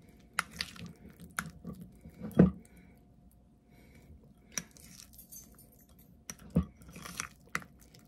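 A spoon stirring a thick yogurt and cottage-cheese mixture in a glass bowl: wet squishing with scattered clicks of the spoon against the glass, and a louder knock about two and a half seconds in and another about six and a half seconds in.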